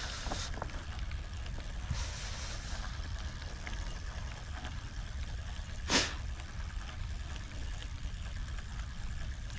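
Steady hiss of moving water, with one short sharp noise about six seconds in.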